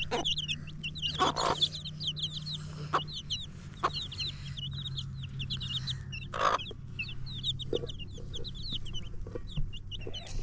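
Chickens peeping: many short, high calls overlapping, several a second. A few sharp knocks sound in between, and there is a low steady hum in the first half.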